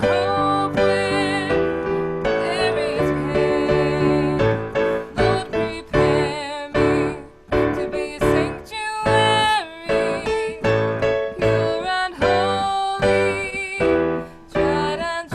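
Piano-accompanied singing, the voice held on long notes with a marked vibrato.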